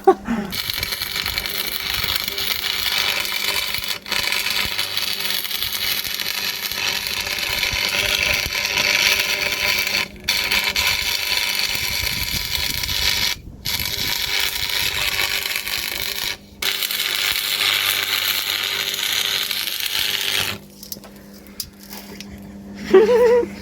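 Stick (arc) welding a differential solid to lock it: the electrode's arc crackles and hisses steadily, breaks off for a moment four times, and stops about 20 seconds in.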